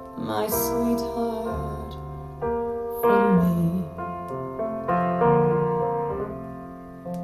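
Slow, gentle piano passage with chords changing about once a second, in a pause between the singer's lines of a slow waltz ballad. It is played back over Yamaha NS-3000 bookshelf speakers.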